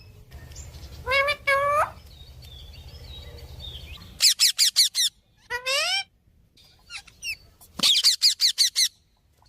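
Pet parakeet calling and chirping: two pitched calls about a second in, then quick runs of sharp repeated chirps around four seconds and again near eight seconds, with single calls in between. A low hum sits under the first half and stops about four seconds in.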